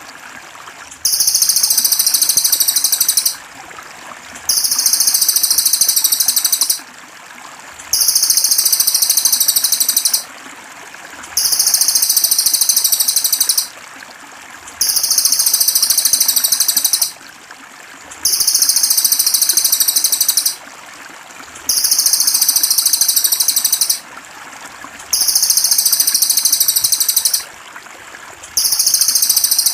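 Masteran bird-song tutor loop of a cililin: a high, rapid, buzzy trill about two seconds long repeating at even intervals of about three and a half seconds, nine times, over steady trickling water.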